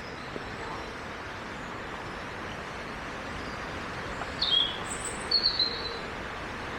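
A few short bird chirps in the middle, one sliding downward and two or three higher notes after it, over a steady outdoor background hiss.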